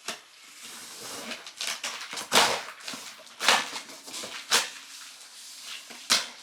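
Cardboard shipping box being opened and handled: rustling and scraping with several loud sharp scuffs of cardboard.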